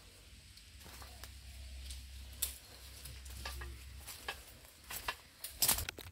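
Twigs and leaves crackling and rustling in cut brush: scattered light clicks over a faint low rumble, with a louder burst of rustling near the end.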